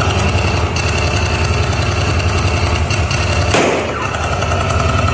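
A steady, loud engine-like rumble, with one sharp bang about three and a half seconds in.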